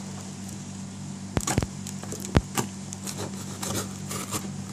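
A small product box being handled and opened: a few sharp knocks and taps, the loudest near the middle, among light rustling and scraping, over a steady low electrical hum.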